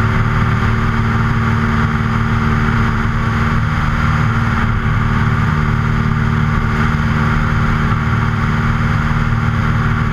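Luscombe light aircraft's piston engine and propeller running steadily in flight, a constant even drone.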